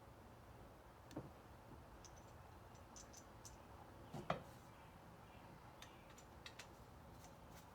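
Near silence with a few faint, scattered clicks and one sharper knock about four seconds in.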